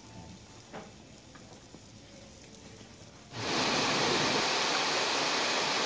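Shallow mountain river rushing over rocks, a loud steady rush that cuts in suddenly about three and a half seconds in. Before it, quiet dining-room sound with a faint click about a second in.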